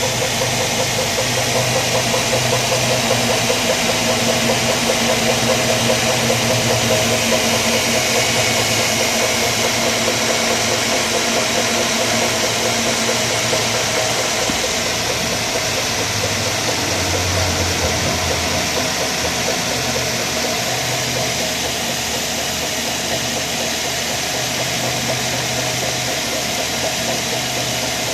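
2003 Mazda 6 1.8 petrol four-cylinder engine idling, with a rhythmic rattling, rotational noise from the alternator area. The owner traced the noise to a new serpentine drive belt 5 mm too short for the car.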